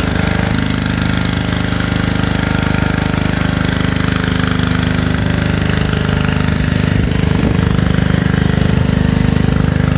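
Pressure washer running steadily, its motor and pump pulsing rapidly, with the hiss of the foam attachment spraying soapy foam.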